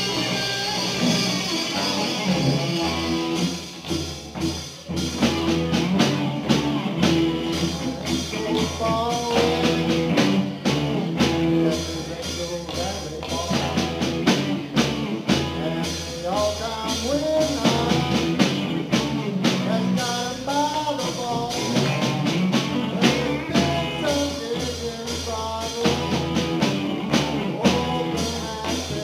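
Live rock band playing: electric guitars and bass guitar with drums, and a lead line that bends in pitch over them.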